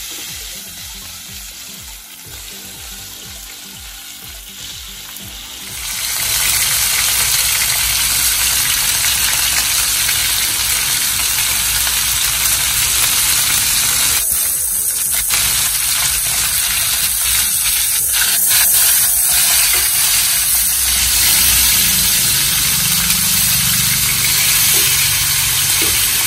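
Steaks frying in butter in a nonstick pan on a gas burner. The sizzle is soft at first, then much louder about six seconds in, and holds steady from there. Light taps and scrapes of tongs in the pan come in the middle stretch.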